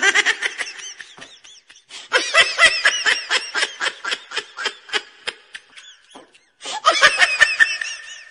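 High-pitched laughter in quick, evenly spaced giggles, coming in three runs with short gaps. The fair's crowd noise drops out underneath, so this is a laugh sound effect laid over the footage in editing.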